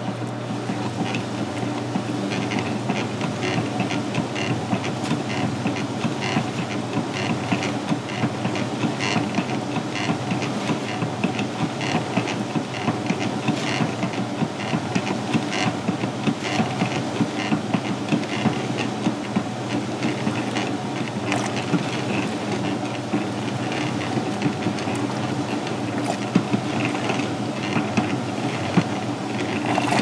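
Vintage Sears Kenmore belt-drive top-loading washing machine agitating: a steady motor hum with rhythmic swishing and sloshing of water and clothes. Its narrow drive belt is slipping, which holds the agitator back from full speed.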